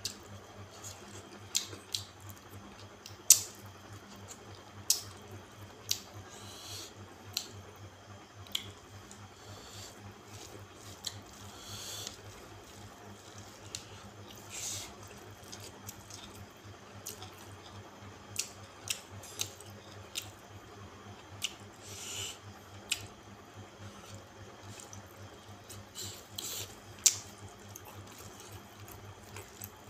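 Close-up wet mouth sounds of a person eating rice and curry by hand: irregular sharp smacks and clicks of chewing and lips, over a low steady hum.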